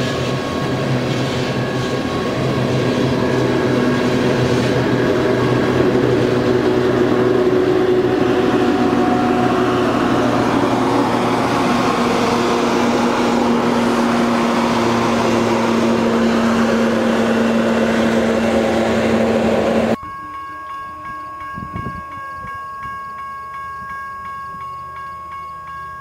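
Loaded coal hopper cars rolling past close by, with the steady rumble and clatter of steel wheels on rail. About two-thirds of the way through, a diesel locomotive in the train's consist passes and adds a strong steady engine drone. The sound then cuts off abruptly to a much quieter steady tone with a faint regular pulsing.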